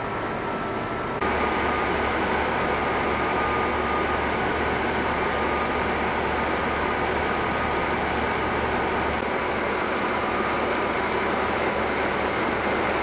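KiHa 48 diesel railcar standing at a platform with its engine idling: a steady low hum with a faint whine above it, louder from about a second in.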